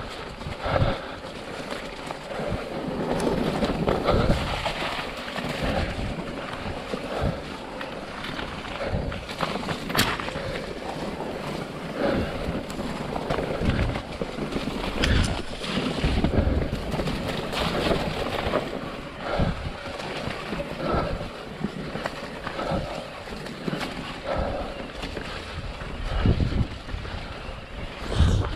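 E-mountain bike descending wet, rocky, muddy singletrack: tyres running and splashing through mud and puddles, with irregular knocks and rattles as the bike hits rocks, and wind on the microphone.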